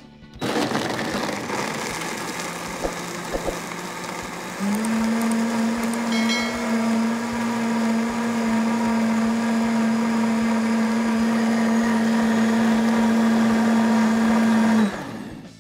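Dynamic BlendPro blender motor running on a jar of ice and juice, blending it into a smooth frozen margarita. It starts about half a second in, and about five seconds in its hum steps up to a higher, louder pitch. It stops near the end.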